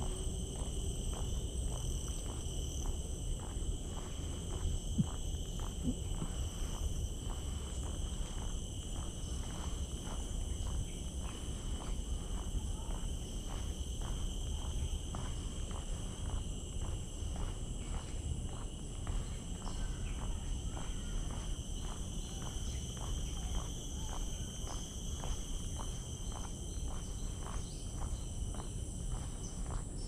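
A steady chorus of insects, several shrill high tones held unbroken, over regular footsteps on a wooden boardwalk, with a steady low rumble underneath.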